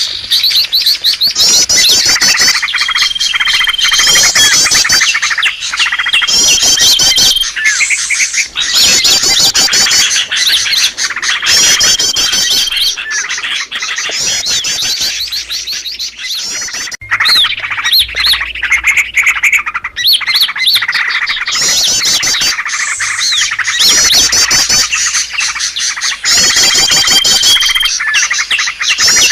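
Bird-luring recording of many small songbirds calling at once: dense, overlapping chirps and rapid trills, with a short steady whistle that comes back every few seconds. The calls are layered and looped to draw small wild birds in.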